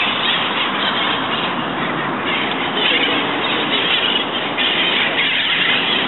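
Steady street-traffic noise mixed with birds calling.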